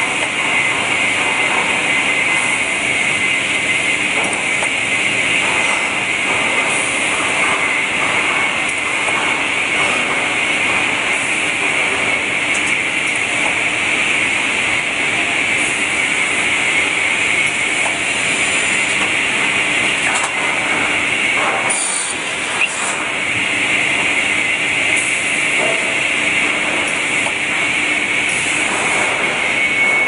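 Automated lumber saw line running steadily: loud machine noise with a strong high hiss and a few brief sharper clatters, one of them around two-thirds of the way through.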